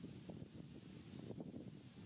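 Faint wind buffeting the microphone: an uneven low rumble with a light hiss.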